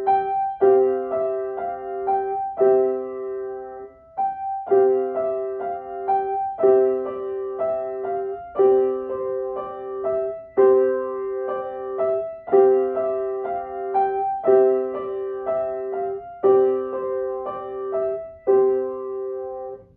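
Piano playing a simple children's piece in short repeated phrases, each starting with a firm chord about every two seconds, with a brief break about four seconds in. The playing stops at the very end as the piece finishes.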